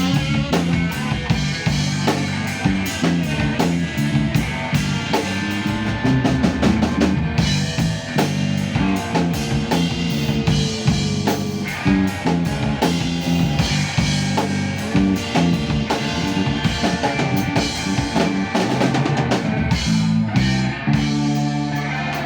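A live band playing, led by a full drum kit with snare and bass drum hits over a walking low bass line and guitar.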